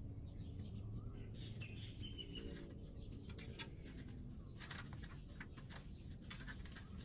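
Faint birds chirping: a short high call about two seconds in, then a quick run of short sharp chirps around the middle, over a low steady background noise.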